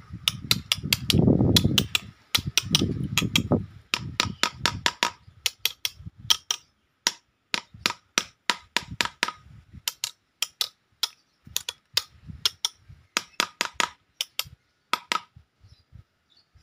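Hammer striking a steel nail driven into a tree trunk: many sharp metallic blows in quick runs of several a second, with short pauses between runs. A low rumble sits under the blows in the first few seconds.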